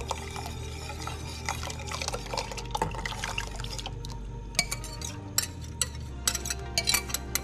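All-purpose cream pouring into a stainless-steel saucepan of simmering milk mixture while a wire whisk stirs, its wires clicking against the pan. The clicks come thicker and sharper in the second half.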